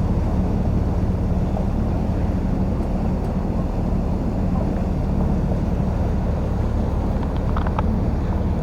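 Tour boat's engine running steadily under way, a low, even drone.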